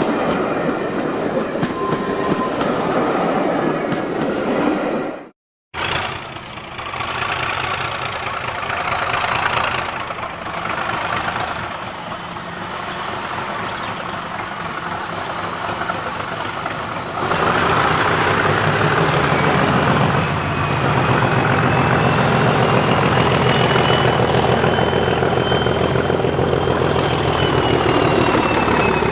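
Passenger coaches rolling past close by, with clickety-clack of their wheels over the rails. After a short break, a Class 37 diesel locomotive with its English Electric V12 engine works a train past. The engine grows loud about two-thirds of the way through, with a high whistle that rises and holds over the engine note.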